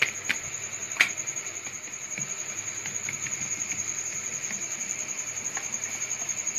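Hand patting and smoothing rolled wheat-flour dough on a wooden board, with a few light knocks near the start. Over it runs a steady high-pitched whine with a faint even pulse.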